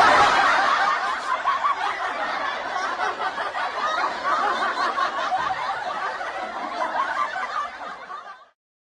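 Laughter from many people at once, a meme laugh-track clip. It starts suddenly and fades out after about eight and a half seconds.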